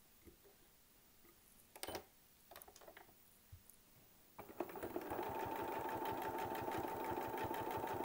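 A few faint clicks, then about four and a half seconds in a domestic sewing machine starts up. It runs steadily at speed, stitching in a rapid, even rhythm over a steady motor whine as it free-motion quilts through a thin quilt sandwich.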